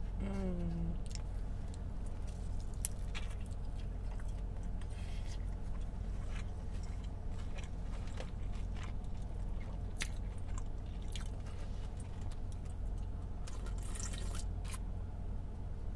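Close-up chewing of a crispy birria taco: wet mouth clicks and soft crunches. Near the end comes a slurp of consommé from a cup.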